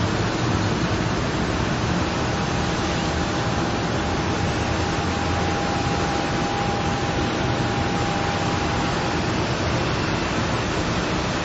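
A steady, even hiss, with a faint thin steady tone through the middle few seconds.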